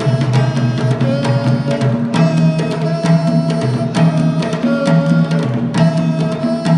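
Live band music: hand drums played over sustained pitched chords that change about every two seconds.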